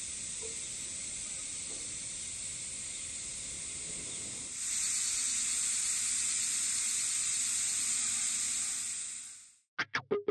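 A distant chorus of higurashi (evening cicadas) calling steadily in a high, hissing drone. It grows louder about halfway through and fades out near the end.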